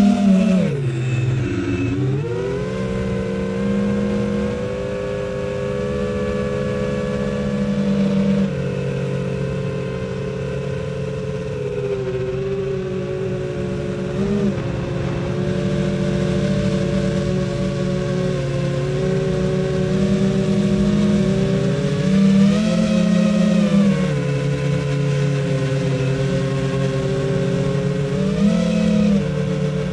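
Brushless motors and propellers of an FPV quadcopter running on a 4S battery, a steady multi-tone buzz that tracks the throttle. The pitch drops sharply about a second in as the throttle is cut, climbs back, and rises again briefly about two-thirds of the way through and near the end.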